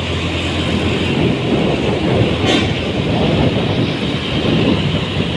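Vehicle running in traffic: engine drone and road rumble, with a brief click about halfway through.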